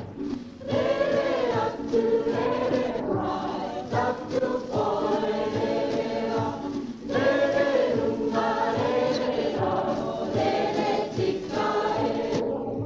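Background music: a choir singing in long held phrases with short breaks between them.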